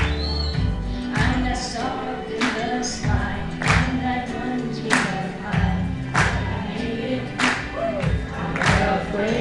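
Music with singing over a bass line and a steady beat, a sharp strike about every 1.25 seconds.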